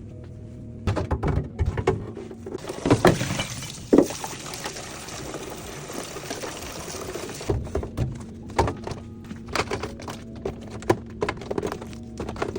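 Groceries and containers handled and set down on fridge shelves: scattered knocks and clatter, with a steady rushing noise of about five seconds in the middle.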